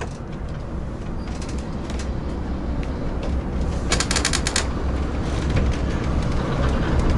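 Motorhome driving, heard from inside the cab: a steady low engine and road rumble that grows gradually louder, with a brief run of rattling clicks about four seconds in.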